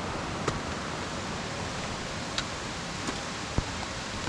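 Steady rushing of a rainforest mountain stream, with a few brief clicks.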